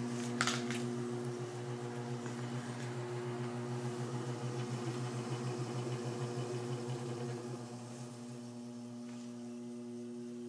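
Motor of a potter's wheel driven by a treadmill motor and controller, running with a steady hum and a slight rhythmic pulsing, after a couple of short clicks at the start. About three-quarters of the way through the hum drops to a quieter, steadier level.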